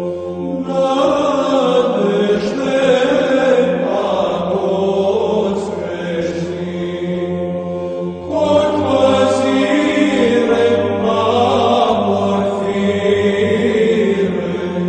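Eastern Orthodox church chant: voices singing a slow melodic line over a low held drone note. A new phrase starts about halfway through.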